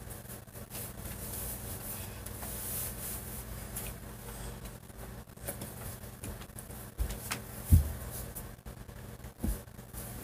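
Room tone with a low steady hum, then a few dull thumps in the last few seconds: footsteps of a person walking back into the room.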